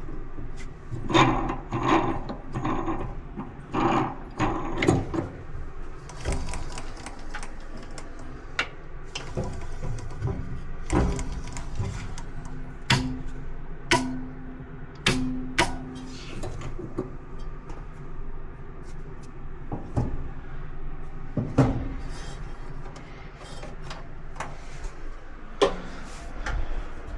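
Irregular knocks, clicks and clanks of hands and tools working on a dryer's cabinet and parts, with a short steady hum about halfway through.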